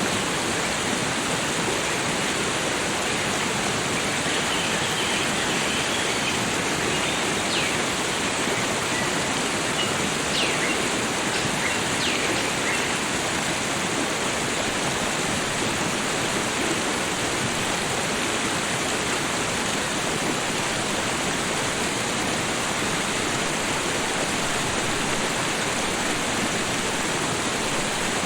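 Small garden waterfall with water falling and flowing at a steady rush. A few faint bird chirps come through in the first half.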